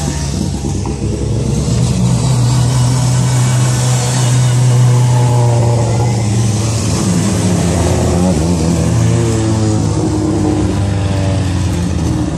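Rally car engines running loud and close, their pitch rising and falling through the middle, over a steady hiss from the wet road.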